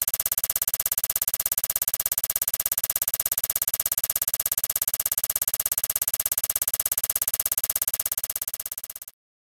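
Old film projector running, as an intro sound effect: a fast, even clatter of many ticks a second. It fades and stops about nine seconds in.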